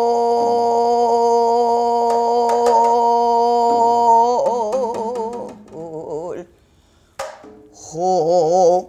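A woman singing sijochang, traditional Korean sung poetry, solo in an older woman's voice. She holds one long steady note for about four seconds, then breaks into wide, slow wavering bends and fades. After a short pause she takes up the next note with the same wavering, and a couple of light taps sound under the held note.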